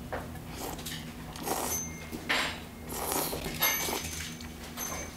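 Slurping and chewing a mouthful of spicy jjolmyeon noodles in several short noisy bursts, the loudest a little past two seconds in, over a steady low hum.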